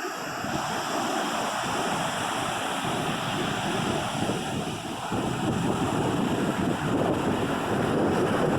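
Ocean surf breaking on a beach, a steady wash of water that swells louder about half a second in and again around five seconds in.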